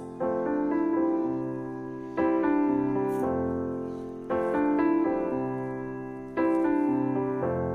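Background piano music: soft sustained chords struck about every two seconds, each fading away before the next.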